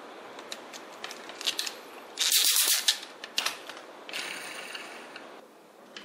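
Hard plastic toy building parts clicking and clattering as a wheel is fitted to the toy truck and turned with a plastic screwdriver. The loudest part is a short, dense clatter about two seconds in, with scattered single clicks before and after it.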